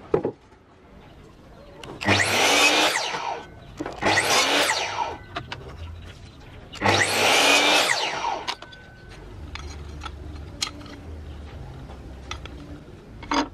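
Electric miter saw cutting thin wooden strips: three short runs of the blade in a row, each spinning up, cutting through the wood and winding down. There is a sharp knock just at the start and another short knock near the end.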